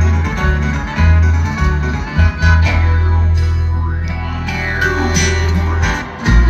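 A bluegrass band playing live, amplified through a festival PA and heard from the crowd: acoustic guitar and banjo over a heavy bass. The low end drops out briefly near the end, then comes back with a loud accented hit.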